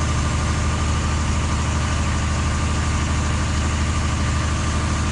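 An engine running steadily at idle, a low even hum, over a continuous rushing hiss.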